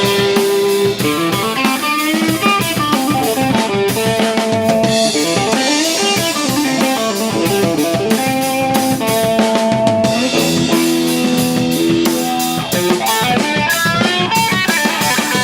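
A rock band playing: a guitar melody with sliding, bending notes over a steady drum-kit beat.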